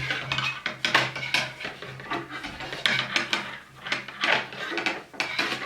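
Metal coat-hanger wire being handled and fed into a sweatpants waistband, giving irregular light metallic clinks and scrapes.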